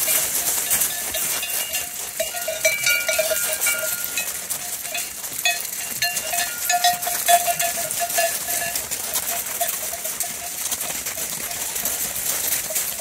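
Bells on a flock of sheep clanking irregularly as the animals walk, over a constant crunching of many hooves on gravel.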